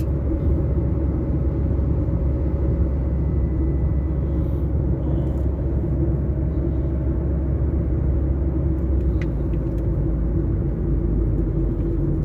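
Steady low rumble of a moving car's engine and tyre noise, heard from inside the cabin.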